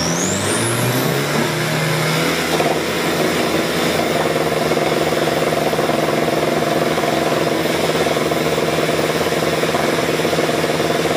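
Race-tuned Isuzu D-Max 3.0 turbo-diesel engines on the drag-strip start line. Revs climb with a rising turbo whine in the first couple of seconds, then the engines are held at a steady rev, waiting for the launch.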